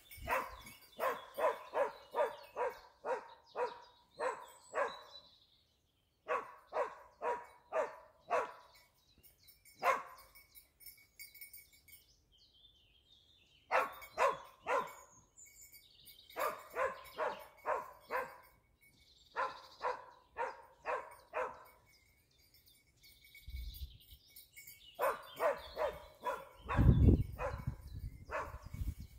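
Dachsbracke scent hound giving tongue on wild boar, barking in rapid runs of about two to three barks a second with short pauses between them. A loud low rumble comes in near the end.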